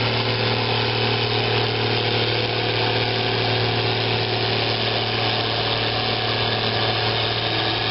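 Steyr 8130 Turbo tractor's turbo diesel engine running steadily at a constant speed, close by.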